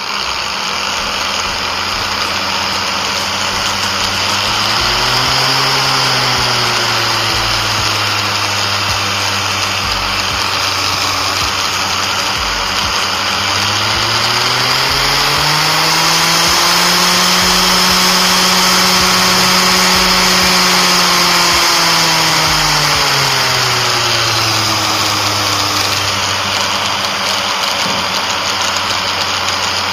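Electric angle grinder running through an electronic speed regulator, its motor whine rising and falling in pitch as the regulator knob is turned. There is a brief speed-up and drop about five seconds in, then a longer climb to a higher speed that holds for several seconds before easing back down.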